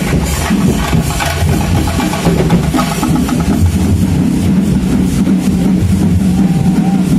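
Procession drumming beating in the first few seconds, giving way to a steady engine hum from a vehicle, which dominates the rest.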